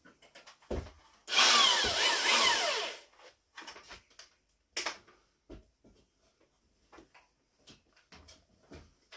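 Corded electric drill triggered once for about a second and a half, its motor whine shifting in pitch as it spins up and slows, amid light knocks and clicks from handling the drill.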